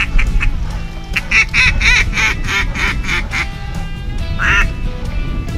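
Duck quacking: a few soft quacks, then about a second in a loud run of some eight quacks in quick succession, and one more quack about a second later. Faint background music runs underneath.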